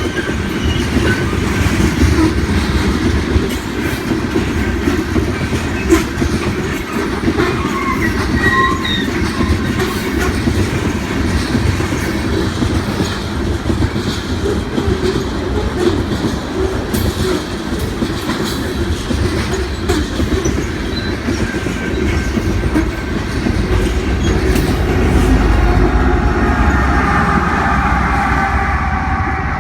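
Loaded coal cars of a BNSF freight train rolling past: a steady rumble of steel wheels on rail with clickety-clack over the joints and a few brief wheel squeals.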